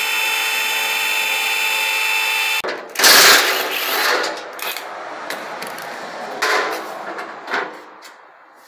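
A steady motor whine holds one pitch and cuts off abruptly after about two and a half seconds. Then a cordless driver buzzes in a few short bursts as it undoes the bolts of the truck's underbody bash plate.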